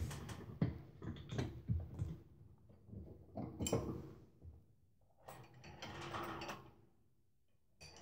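Home multi-station gym machine rattling and clicking irregularly as it is used: cables running over its pulleys and metal parts knocking.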